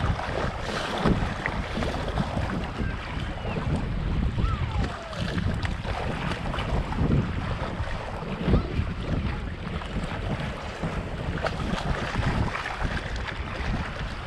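Wind buffeting the microphone in uneven gusts, over small waves lapping and splashing against shoreline rocks.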